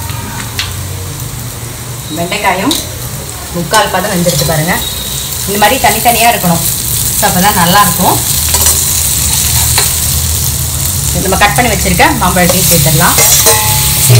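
Chopped okra sizzling in hot oil in a stainless steel pan, with a steel spatula stirring it in repeated scraping strokes, starting about two seconds in.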